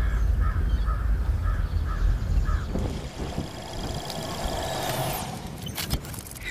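A bird cawing repeatedly, about twice a second, over a low rumble. From about three seconds in, a sci-fi sound effect for a hovering robot takes over: a whooshing hum with high steady electronic whines and falling sweeps, ending in a few sharp clicks.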